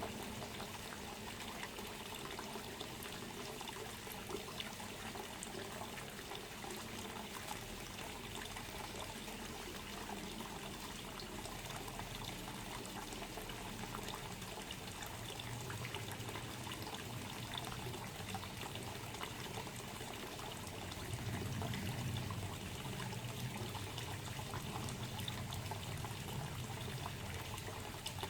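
Water trickling and pouring steadily, with a low hum that swells in the second half.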